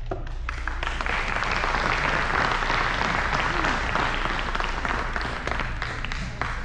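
Audience applauding, many hands clapping together; it swells about a second in and dies away near the end.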